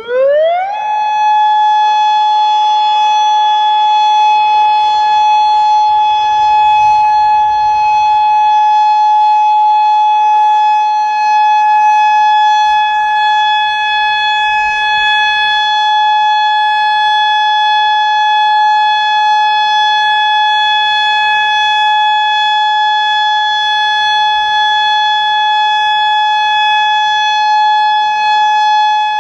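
Federal Signal Modulator 4016 outdoor warning siren sounding its Alert signal. It starts with a quick rising sweep in the first second, then holds one loud, steady tone.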